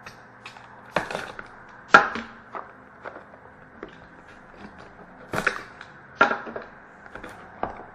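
Hands opening a cardboard trading-card box and its packaging: irregular rustles, scrapes and a handful of sharp knocks, with a faint steady electrical hum underneath.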